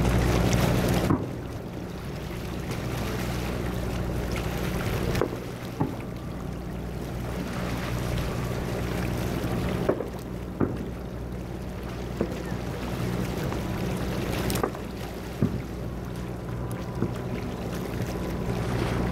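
Distant aerial firework shells bursting: about eight sharp bangs at irregular intervals, starting about five seconds in, some with a short echo. Underneath runs a steady low mechanical hum, and a rush of noise in the first second cuts off abruptly.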